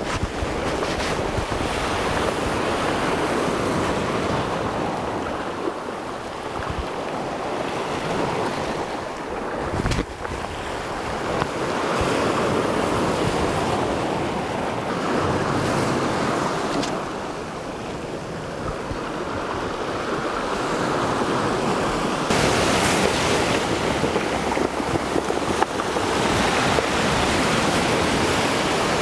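Sea surf breaking and washing over the boulders of a rocky shore, a steady rush that swells and eases every few seconds.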